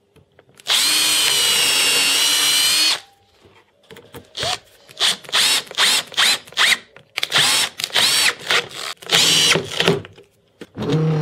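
Handheld power drill boring a pilot hole into laminated birch plywood in one steady run of about two seconds, then driving a screw into it in a string of short trigger bursts, the motor's whine rising and falling with each burst. Near the end a steadier, lower hum begins.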